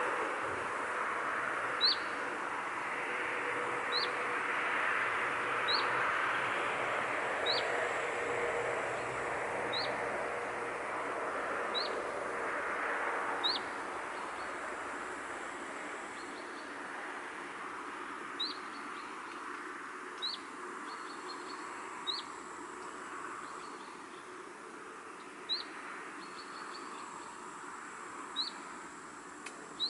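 A songbird repeats a short, sharp, high chirp with a quick downward slide, about once every two seconds. Behind it runs a steady outdoor rushing noise that slowly grows quieter.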